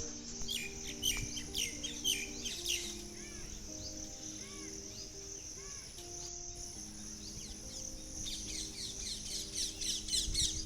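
Small birds chirping in quick bursts of rapid high notes, a flurry near the start and another building toward the end, with single short call notes between. Under them runs a steady high insect-like buzz and soft sustained music notes.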